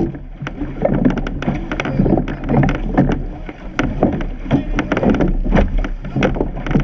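Surf boat being rowed: wooden oars knocking in their gates and blades splashing with each stroke, many sharp knocks at an uneven pace, over a steady low rumble of wind and water on the boat-mounted microphone.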